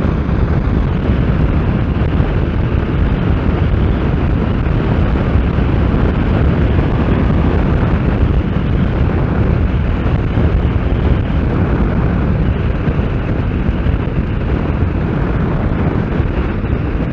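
Steady, loud wind rumble on the microphone of a Kawasaki Z750S motorcycle cruising at speed, with the bike's running and road noise underneath.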